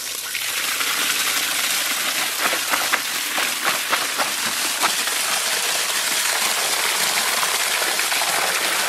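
A stream of water pouring and splashing into an aluminium bowl of cut fish pieces, with sloshing and clatter as hands turn the pieces to wash them.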